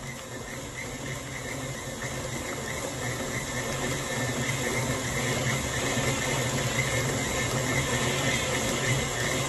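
KitchenAid Classic tilt-head stand mixer running steadily, its beater mixing chiffon cake batter in the steel bowl. The motor hum grows gradually louder.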